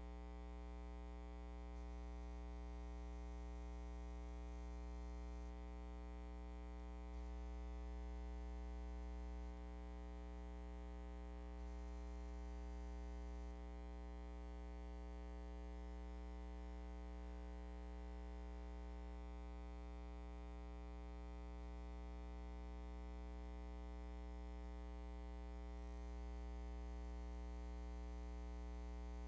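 Steady electrical hum with a buzzy row of overtones and no other sound: mains hum on an otherwise silent soundtrack.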